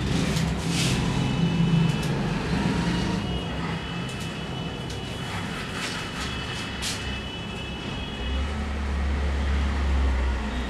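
Street traffic noise from outside, with a few light clicks over it. A vehicle's low engine rumble swells from about eight seconds in and fades near the end.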